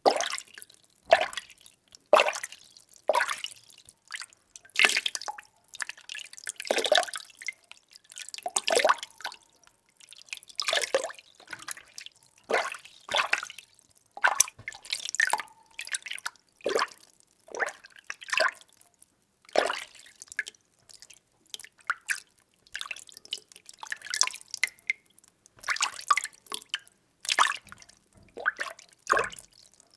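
Water being stirred in a container: short liquid sloshes and splashes, about one a second at an uneven pace, with brief lulls between them.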